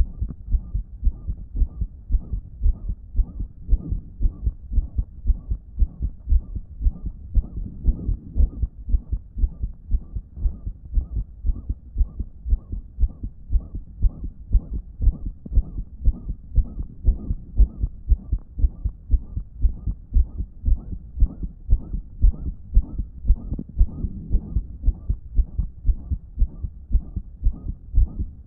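A damaged human heart beating in a steady, even rhythm, with a loud blowing murmur whooshing between the beats. The owner takes this as a sign that the heart wasn't pumping effectively.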